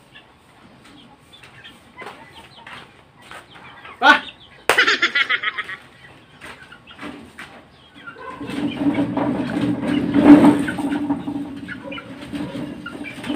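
Chickens clucking around a yard, with a sudden crack and a quick flurry of wing flapping about four to five seconds in. In the second half a long rough scraping and rattling from the wooden, wire-mesh chicken cage as it is grabbed and shifted.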